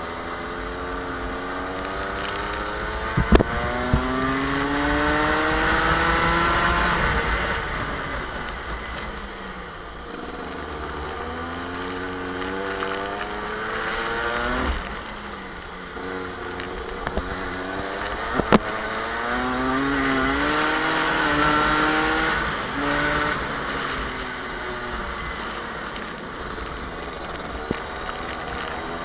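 Rotax two-stroke kart engine racing, its pitch climbing for several seconds as it accelerates and then falling away when the driver lifts for corners, over and over. Two sharp knocks stand out, one about three seconds in and another just past halfway.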